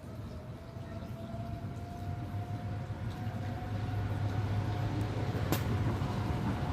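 Distant outdoor tornado warning siren sounding a steady tone, creeping up in pitch and getting louder over the first few seconds, over a low background rumble. A single sharp click comes near the end.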